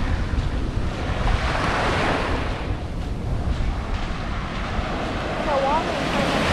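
Ocean surf breaking and washing up the beach in slow swells, with wind buffeting the microphone.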